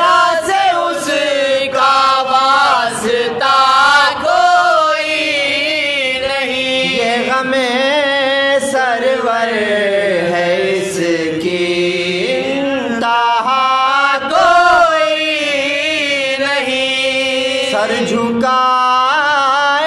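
Male voices chanting soz, an unaccompanied Urdu lament for Imam Husain, in long drawn-out notes that waver in pitch.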